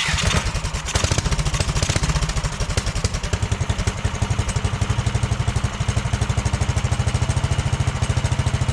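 Small single-cylinder mini bike engine just started, running a little unevenly for the first couple of seconds and then settling into a steady idle with a regular pulse. Its carburetor, just cleaned, had its floats found fitted upside down and corrected before this start.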